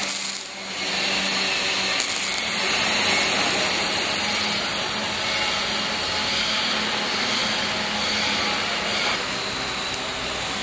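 Robotic arc welding: a welding arc hissing steadily at the torch as it lays a bead on steel, with a faint low hum beneath.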